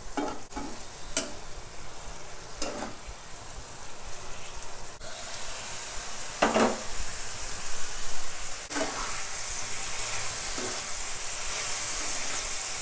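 Button mushrooms and onion frying in oil in a pan, sizzling steadily while being stirred, the utensil scraping and knocking against the pan every second or two. The heat has just been raised, and the sizzle grows louder from about halfway through.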